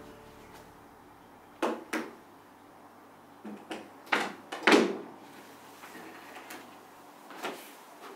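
Wooden knocks and bumps from the top lid of an upright piano being lifted open and handled: about half a dozen sharp knocks spread over several seconds, the loudest a little under five seconds in.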